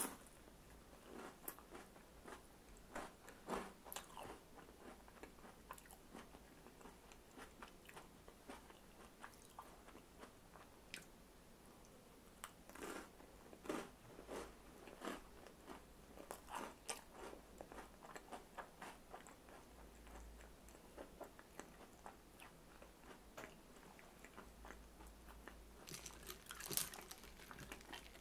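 Faint crunching and chewing of crisp crackers: a person eating cracker canapés, in scattered bites and chews, busiest around the middle and again near the end.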